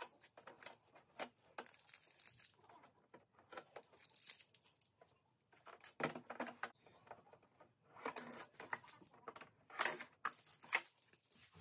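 Faint crackling of shipping tape being peeled off an embroidery machine, then scraping and a few knocks and clicks of its plastic embroidery unit being slid onto the machine's arm.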